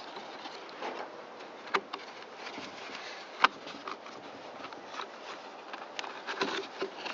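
Sharp clicks and light taps of plastic blower housing and trigger parts being handled during reassembly, two of them louder, over a steady hiss.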